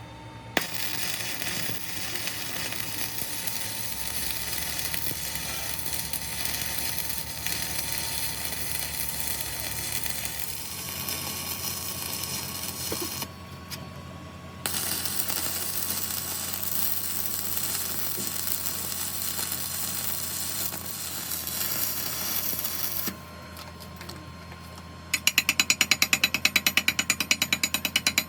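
Metalworking machine noise: a steady hiss of metal being worked over a low machine hum, breaking off twice, then a fast, regular clicking rattle for the last few seconds.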